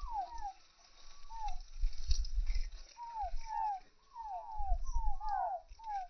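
Chicken chicks peeping: short falling peeps, a few at first, then coming thick and fast in the second half. Low rumbles come and go on the microphone underneath.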